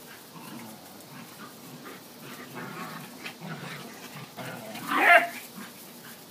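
Dogs playing keep-away with a toy: low, uneven scuffling and grumbling noises, then one loud, short bark about five seconds in.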